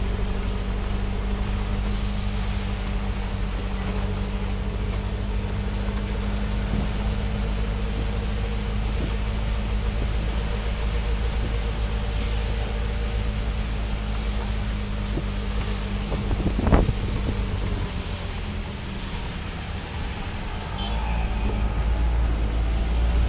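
Engine of a moving vehicle running steadily, heard from inside, with a low rumble and hiss from the wet road. A single sharp knock comes about three-quarters of the way through.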